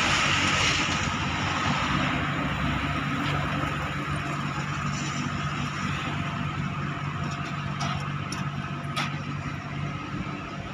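An engine running steadily, with a constant hiss over it and a couple of sharp clicks near the end.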